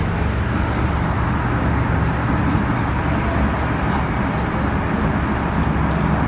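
Interior running noise of an MTR M-Train electric multiple unit under way: a steady rumble of wheels and air, with a low even hum underneath.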